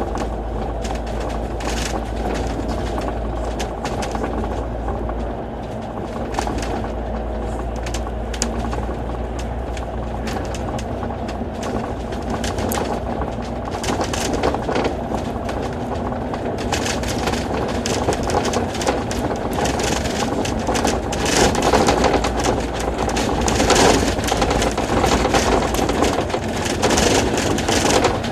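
Alexander Dennis Enviro500 MMC double-decker bus on the move, heard from on board: a steady engine drone with road noise. About 17 seconds in the noise grows louder and hissier.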